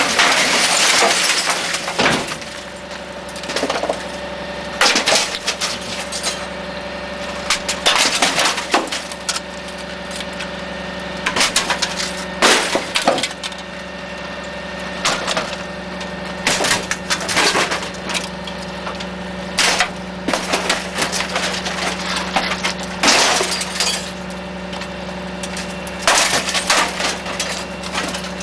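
Garbage truck compactor crushing trash: glass cracks and shatters again and again in short clusters every second or two, over a steady mechanical hum from the truck.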